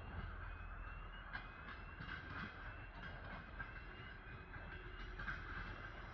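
DR1A diesel railcar approaching, heard faintly as a low rumble with scattered clicks of its wheels over the rail joints.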